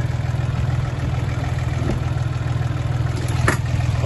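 Volvo Penta marine diesel idling steadily, heard from inside the yacht's cabin, with a sharp knock about three and a half seconds in.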